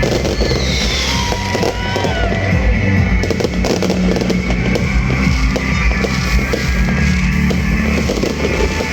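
Loud rock-style music with New Year fireworks bangs and crackles mixed in, and a few brief whistling glides in the first two seconds.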